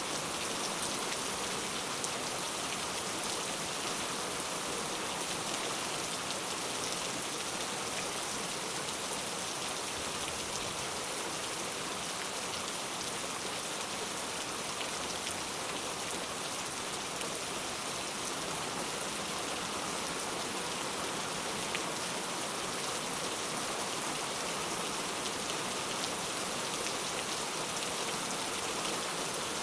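Steady rain falling, an even hiss of many drops with fine scattered patter.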